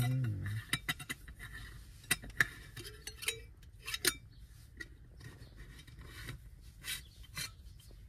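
A voice singing a tune stops about half a second in. After that come scattered small clicks and taps in a quiet car cabin.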